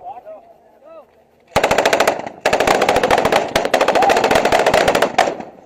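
Loud automatic weapon fire in two long bursts of rapid shots: a short burst about a second and a half in, then an almost unbroken stream lasting nearly three seconds.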